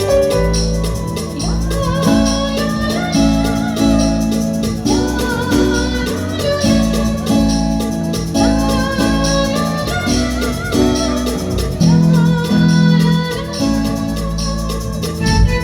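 Stage music from a jatra band: a melody over sustained bass notes, with light percussion.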